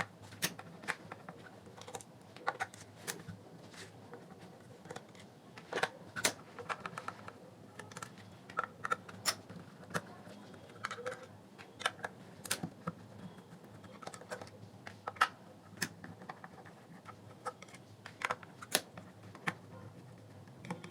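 Irregular small clicks and ticks of a screwdriver and screws against the plastic housing of a JBL Tune Bluetooth speaker as its screws are taken out.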